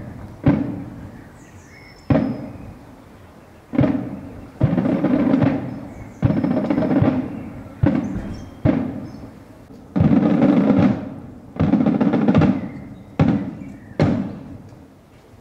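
Marching snare drums draped in black mourning cloth beating a slow funeral cadence: single sharp strokes alternating with short rolls, each dying away before the next.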